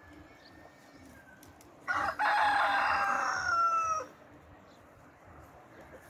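A rooster crowing once, starting about two seconds in and lasting about two seconds, its pitch dropping slightly at the end.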